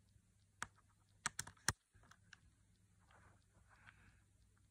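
Light, sharp clicks and taps, four in quick succession in the first two seconds and then faint small handling noises, as a small screwdriver is worked at the hinge screws of an opened laptop's chassis.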